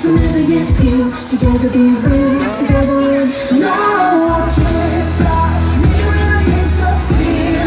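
Upbeat pop song played loudly over a sound system, with a strong beat and bass, an instrumental stretch between sung lines.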